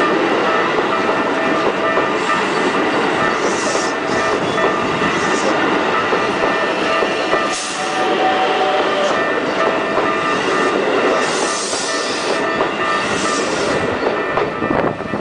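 Keikyu electric train running through a level crossing: a steady, loud rumble of wheels on rail with clattering over the joints, short high squeals from the wheels every second or two, and several steady tones held underneath.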